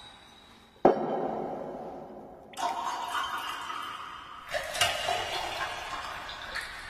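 A drink being poured over ice into a glass, in several pours that each start suddenly and fade away: about a second in, again around two and a half seconds, and again near four and a half seconds.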